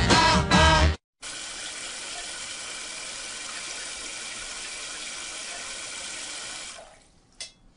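Music that cuts off about a second in, then a steady rush of running water, like a tap, for about five and a half seconds, fading out near the end.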